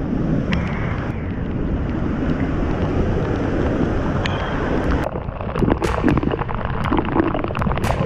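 Waterfall pouring into a rock pool: a steady rush of falling water. From about five seconds in, sharp splashes and droplet hits on the camera come thick and fast as it moves into the spray.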